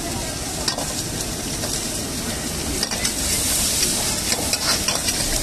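Hot oil sizzling steadily as manchurian balls deep-fry in a kadai and chopped vegetables stir-fry in a wok, with a metal spatula scraping the wok and a few sharp clicks against the pan.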